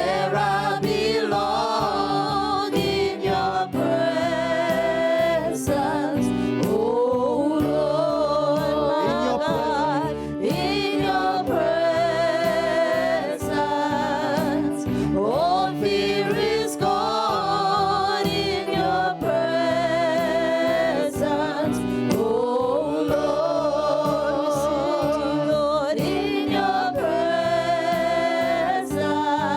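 Gospel worship song being sung, voices with wide vibrato over musical accompaniment with a steady beat.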